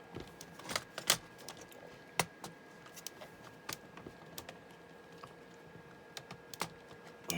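Irregular light clicks and taps of plastic laptop parts being handled and pressed into place, a few sharper than the rest, over a faint steady hum.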